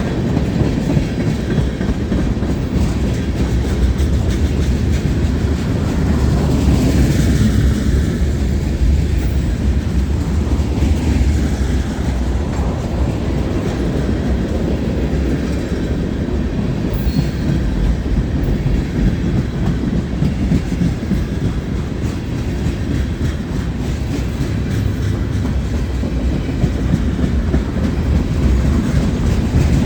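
A long CSX mixed freight train's cars rolling past: a steady low rumble with the wheels clattering over the rails.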